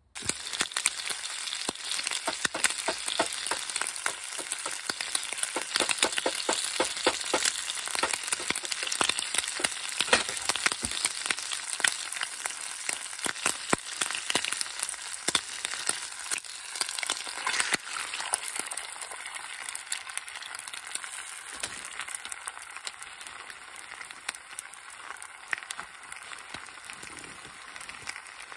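Bacon sizzling and spitting in a frying pan, a dense crackle of tiny pops that eases somewhat over the second half.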